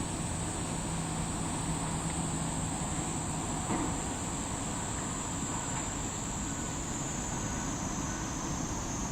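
Insects calling in a steady, high-pitched unbroken drone, over a background hiss of outdoor noise. A brief low hum sounds during the first couple of seconds, and there is a small knock about four seconds in.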